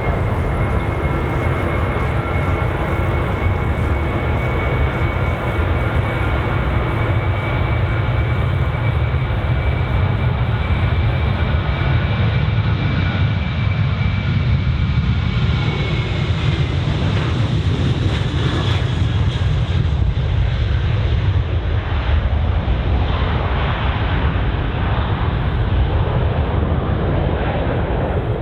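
Boeing 737-800's CFM56-7B turbofan engines at takeoff thrust: a loud, steady rumble with a high fan whine. The whine drops slightly in pitch about halfway through, and the hiss peaks just after as the jet passes, then fades.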